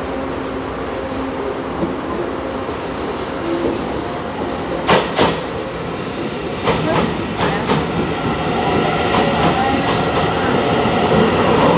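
Taiwan Railways EMU900 electric multiple unit arriving: a steady rolling rumble with a faint motor hum, then a run of sharp clacks from the wheels from about five seconds in, growing louder near the end as the train draws closer.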